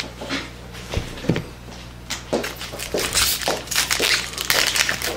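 Foil trading-card pack wrapper crinkling and crackling in the hands as it is handled and opened, busiest in the second half.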